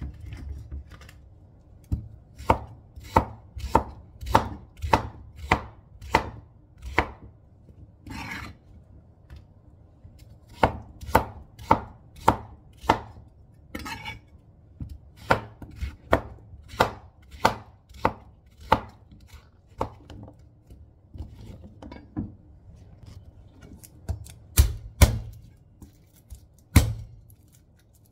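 Chef's knife chopping chunks of kalabasa squash on a cutting board: sharp strokes about two a second in runs of several, with short pauses between runs and a few louder knocks near the end.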